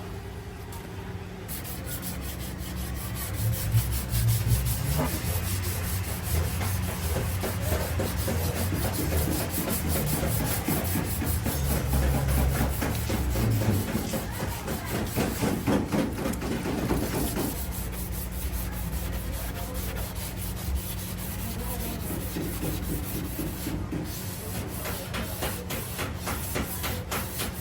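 Sanding on a car body panel: quick, steady scraping strokes over a low, steady hum, with a pause of several seconds past the middle before the strokes start again.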